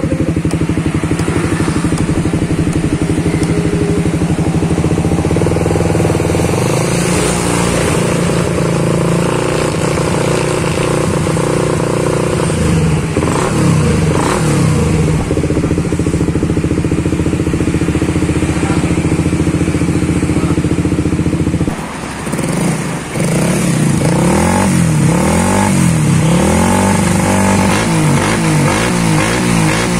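Suzuki GSX 150's single-cylinder engine, freshly ported and polished, running at a steady idle and then revved. After a brief dip a little past two-thirds through, the throttle is blipped over and over, the revs rising and falling about once a second.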